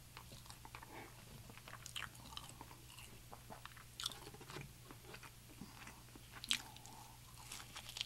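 Close-miked chewing with scattered wet mouth clicks and crunches, the loudest crunch about six and a half seconds in; near the end a crispy fried chicken piece is bitten into.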